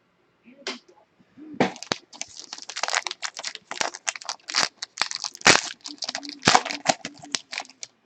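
Foil wrapper of a football trading-card pack being torn open and crinkled: a dense run of crackles and rips starting about a second and a half in.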